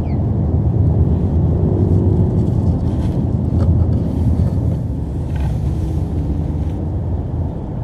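Steady loud low rumble, with a few faint clicks as the perforated lid of a plastic bait jar is worked open and a mangrove tree crab is picked out.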